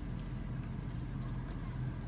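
Car engine running, heard from inside the cabin as a steady low hum.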